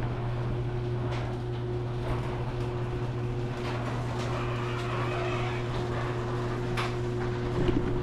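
LiftMaster garage door opener running, raising a sectional garage door: a steady motor hum with a few light clicks from the moving door.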